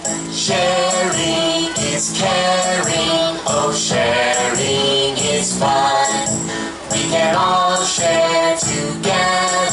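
Music with voices singing and a jingling percussion beat.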